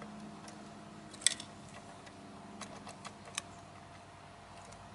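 Small clicks and taps from a First Gear 1/34 Heil Durapack Python side-loader model's grabber arm and a toy trash cart being worked by hand. There is one sharp click about a second in, then a few lighter clicks around the middle, over a faint steady hum.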